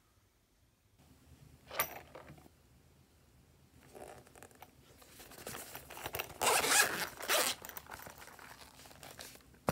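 Zipper on a pencil case being pulled open around its edge, a long zipping run that is loudest about six to seven seconds in, after a sharp click about two seconds in.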